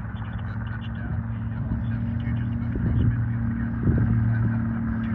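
DHC-2 Beaver's RED V12 diesel engine and propeller running steadily, a low even drone. A couple of short low thumps come about three and four seconds in.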